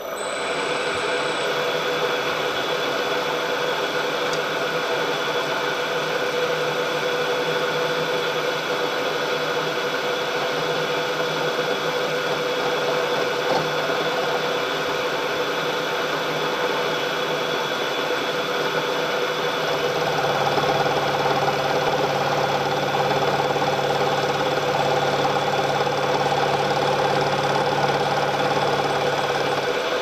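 Vertical milling machine spindle starting up and running steadily with a bevel cutter, cutting a bevel along the edge of a brass plate. About twenty seconds in the sound turns fuller and slightly louder.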